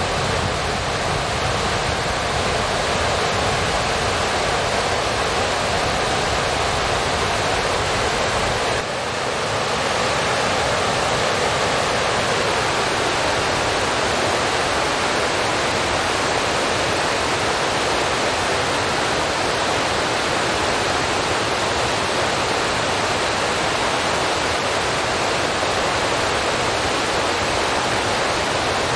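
A steady, even hiss like rushing water or static, with a slight shift in tone about nine seconds in.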